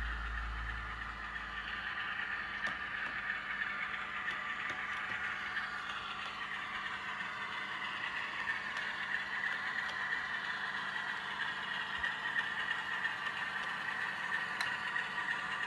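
Model Class 47 diesel locomotive hauling a container train along a model railway: a steady running sound from the locomotive and wagons on the track, slowly rising and falling in pitch, with a few light ticks. A low rumble fades out in the first two seconds.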